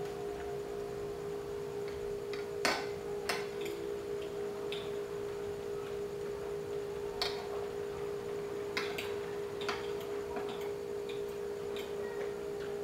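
Spoon and fork clinking and scraping against a ceramic plate during eating: scattered sharp clicks, the loudest about three seconds in, over a steady humming tone.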